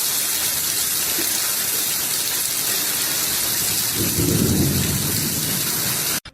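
A steady, loud rushing hiss like heavy rain, with a low rumble swelling about four seconds in; it cuts off abruptly near the end.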